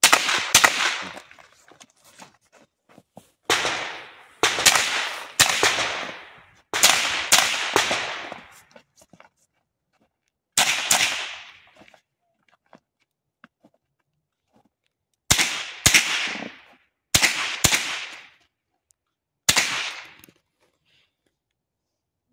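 Pistol shots fired in quick pairs and short strings during a practical-shooting course of fire, each with a brief echo. There is a pause of a few seconds near the middle while the shooter moves to the next position, then more pairs.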